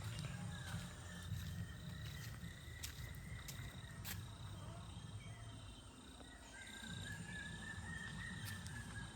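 Steady low rumble of a waterfall's falling water, with a high, evenly pulsing insect chirr over it.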